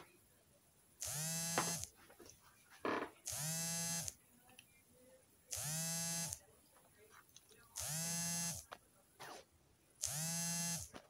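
A small motor buzzing in five regular pulses, each just under a second long and about two seconds apart, each rising briefly to a steady pitch as it starts.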